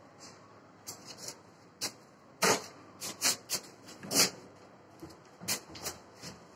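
Irregular knocks and clatter as a stone backsplash panel is handled and set against the wall above the counter, loudest twice, about two and a half and four seconds in.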